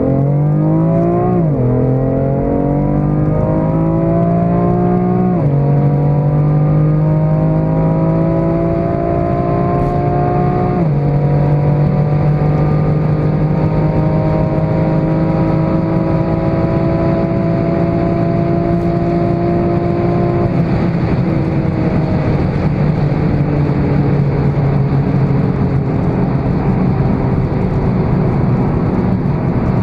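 BMW M4 Competition F82's twin-turbo straight-six engine heard from inside the cabin under hard acceleration. Its note rises and drops sharply at three upshifts, about 1.5, 5.5 and 11 seconds in, then keeps climbing in fifth gear past 220 km/h. About 20 seconds in the throttle is lifted and the engine note slowly sinks as the car slows, over steady road and wind noise.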